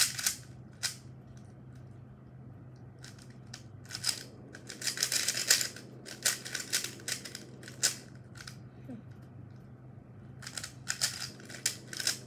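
YJ Ruilong 3x3 Rubik's cube being turned quickly by hand: bursts of plastic clicking and clacking as the layers are twisted, in flurries with short pauses between, while it is being solved from a scramble.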